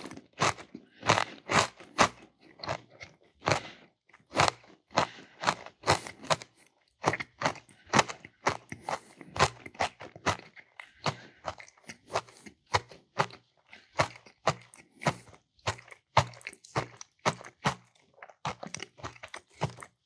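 Crunchy chewing of herb-seasoned Cheez-It crackers, a steady run of crunches about two or three a second.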